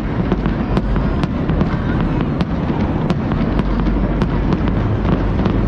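Aerial fireworks going off in quick succession: a continuous deep rumble of explosions with sharp cracks about twice a second.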